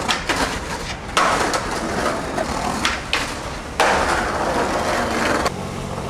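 Skateboard being ridden: several sharp clacks of the wooden board popping and landing, with the wheels rolling over paving between them.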